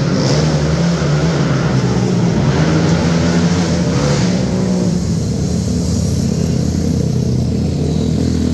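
Sport quad engines running hard around a dirt oval, several at once. The brighter, louder engine noise peaks as one passes close about four seconds in, then drops to a lower, steadier drone.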